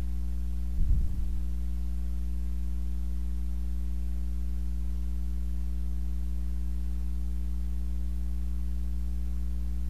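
Steady electrical mains hum, a low buzz of fixed tones that never changes, with one brief low bump about a second in.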